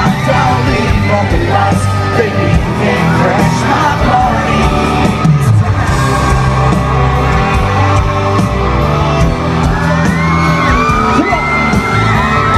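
Live band playing loud country-rock music, with singing voices and a crowd yelling and whooping over it.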